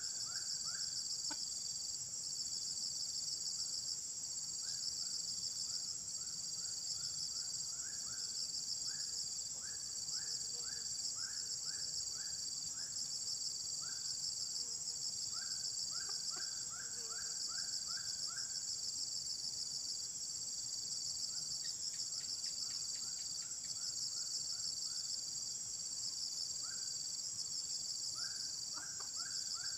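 Steady, high-pitched insect chorus with a fast pulsing texture. Over it, runs of short falling chirps at about two a second start and stop several times, and a brief patch of light clicks comes about three-quarters of the way through.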